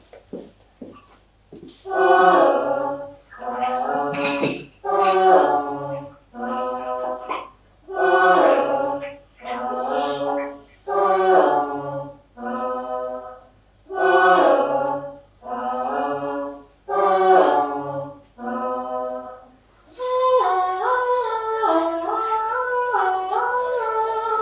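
Unaccompanied singing in short phrases of about a second each, with brief pauses between them; near the end the singing runs on in one longer phrase whose pitch moves in steps.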